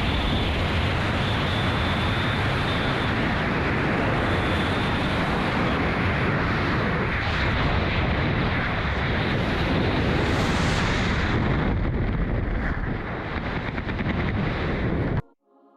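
Loud, steady rush of wind on the microphone during a skydive. It cuts off suddenly near the end.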